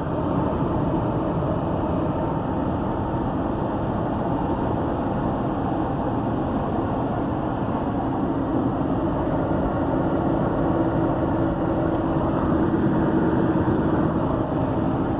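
Steady engine and road noise of a moving vehicle, heard from inside the cab, with a faint low hum coming in about ten seconds in.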